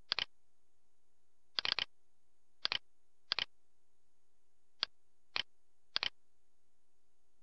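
Computer mouse button clicks, mostly in quick press-and-release pairs, about seven times at irregular intervals over a faint steady electrical hum.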